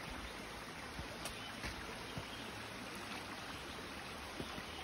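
Shallow mountain stream running over rocks, a steady wash, with a few faint knocks of footsteps on the streambed stones.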